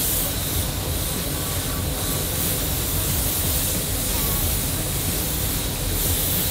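Compressed-air gravity-feed spray gun spraying red candy paint onto a car taillight lens: a steady, even hiss of air and atomised paint.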